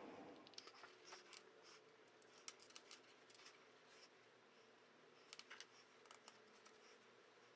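Faint, scattered light clicks and clinks of small metal doctor's-bag fittings (buckles and clasp parts) being handled in gloved hands and set down on a cutting mat, coming in a few small clusters.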